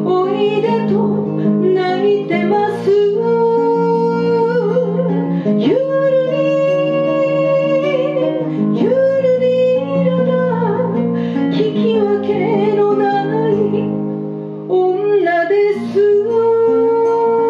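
A woman singing an enka song into a microphone, accompanied live on a strummed acoustic guitar, holding long notes with vibrato.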